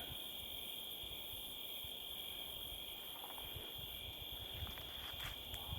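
Crickets chirping in a steady, unbroken high chorus, with a few faint knocks near the end.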